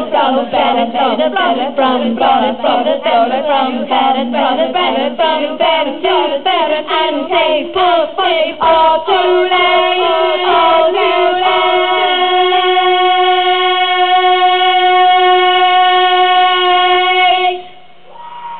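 Several women's voices singing a medieval-style song in harmony, heard harshly through a stage PA loudspeaker: quick runs of short sung notes give way to slower held notes, and the song ends on one long sustained chord that stops shortly before the end.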